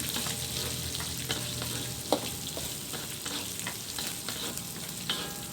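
Sliced shallots, bruised lemongrass and curry leaves sizzling steadily in hot oil while being stirred. Small scrapes and clicks of the stirring utensil against the pan run through it, with a sharper knock about two seconds in and another near the end.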